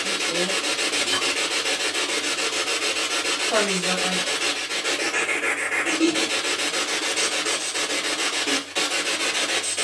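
Spirit box radio sweeping through stations: a steady, choppy rasp of static with short snatches of broadcast sound breaking through, the noise ghost hunters listen to for spirit voices. It drops out for a moment near the end.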